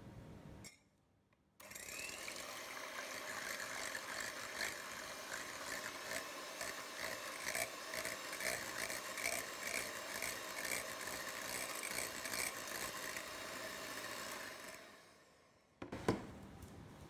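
Electric hand mixer running at a steady speed, its wire beaters whisking egg whites to a coarse foam in a glass bowl, a steady whir with a fast rattle. It starts about a second and a half in and dies away near the end, followed by a single sharp click.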